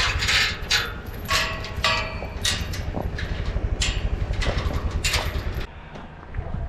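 A vehicle engine running low under loose metal rattling and clanking in irregular knocks, with an occasional short metallic ring; the rattling stops about five and a half seconds in.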